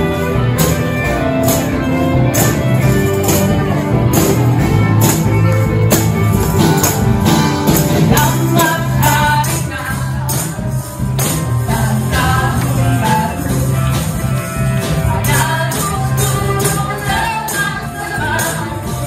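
Live church band music with singers, and a group of dancers' tambourines struck and shaken on the beat, their jingles sounding as regular bright strikes over the band.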